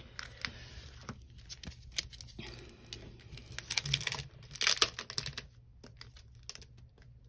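Plastic sleeve and paper sticker sheets crinkling and rustling as they are handled, with light taps. The rustling is loudest about four to five seconds in.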